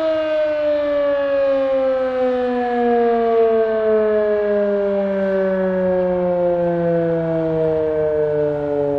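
Darley 3V8 fire siren winding down: its several tones fall slowly and steadily in pitch while it stays loud.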